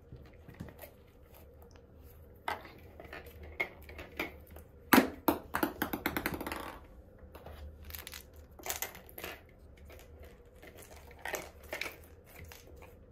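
Kittens' claws clicking and scrabbling on a clear acrylic bowl cat bed and its carpeted rim as they climb about. About five seconds in there is a sharp knock, followed by a quick run of rattling ticks.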